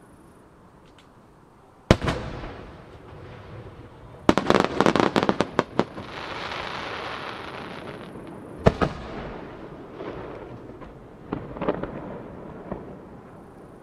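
Large Japanese aerial firework shells bursting: one sharp bang about two seconds in, a rapid run of cracks a little after four seconds followed by a hissing wash, another sharp bang near nine seconds, and a few smaller pops near the end.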